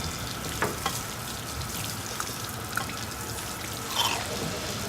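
Water running and trickling out of a leaking pipe on a pressurised hazmat leak-training prop, with four short metallic clicks and knocks, the loudest about four seconds in.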